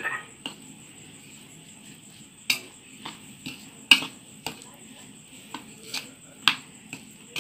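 Spoon stirring a thick mix of chopped boiled egg, egg white, spices and flour in a plate, with scattered clinks and scrapes of the spoon against the plate, about once a second.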